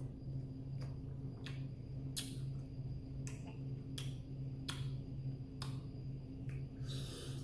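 Close-miked chewing of a mouthful of instant noodles: wet mouth clicks and smacks every half second to a second, over a steady low hum.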